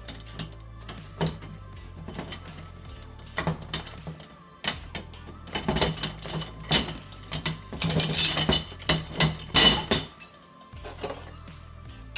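Metal parts and hand tools clinking and knocking as an Alaskan chainsaw mill is bolted together: a run of irregular clicks and knocks, busiest and loudest between about six and ten seconds in.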